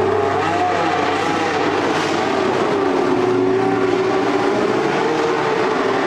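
Classic 1980s Formula One cars' Ford-Cosworth V8 engines running at low revs, with the pitch wavering a little up and down.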